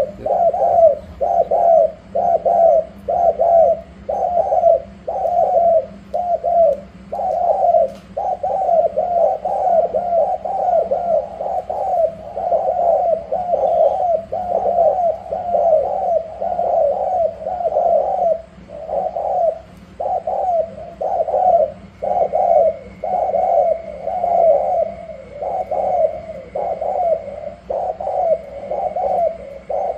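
Caged male spotted doves cooing in rapid, repeated bowing coos, about two notes a second without a break, as the two birds challenge each other.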